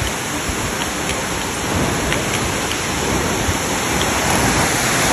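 Steady rushing of falling water from Amicalola Falls, a dense, even roar.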